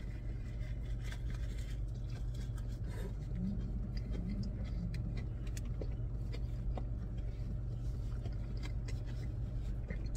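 Steady low hum of a parked car with its engine running, heard inside the cabin, with faint chewing and small mouth clicks of someone eating a hot dog over it.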